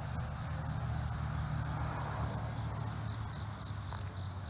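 Insects chirring steadily in a high, evenly pulsing drone over a low steady rumble.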